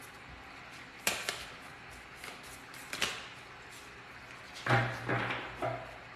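Oracle cards being shuffled and handled, with sharp snaps of the deck about a second in and again about three seconds in. A short low voice sound, like a murmur, comes about five seconds in.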